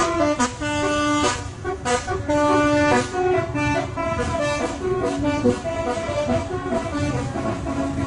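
Telolet horn on a coach bus playing a multi-note tune of held notes over the bus engine's rumble, the tune fading in the last couple of seconds as the bus moves off.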